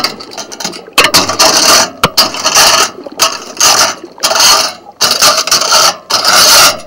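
Oyster dredge's metal frame and teeth dragging over the shell and mud bottom, grating and rattling in a string of loud bursts a little more than once a second.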